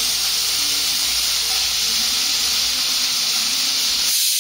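Diced raw potato sizzling in hot oil in a frying pan, a steady hiss: the potatoes have just gone into the heated oil to start frying.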